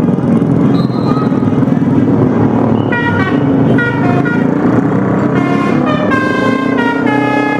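Bus 'telolet' Basuri musical air horn playing a quick stepping melody of short notes, starting about three seconds in, over a steady low rumble.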